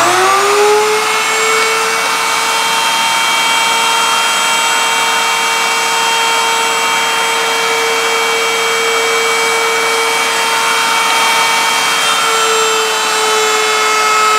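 Table-mounted router comes up to speed in the first moment, its whine rising, then runs with a steady high whine while a wooden bar is fed past the profile bit to shape its edge.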